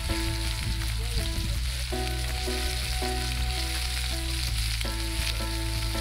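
Pork chops sizzling on a cast-iron grill pan over a campfire, a steady frying hiss, with soft background music under it.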